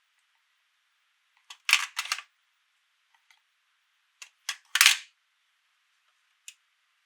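Sharp clicks and snaps from a toy and its packaging being handled, in two quick clusters about a second and a half and four and a half seconds in, with one more click near the end.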